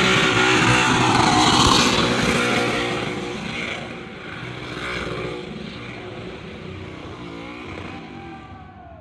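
Burnout car engine held at high revs with tyre noise, loudest in the first couple of seconds, then easing off and dropping to a quieter running engine, with a brief rev near the end.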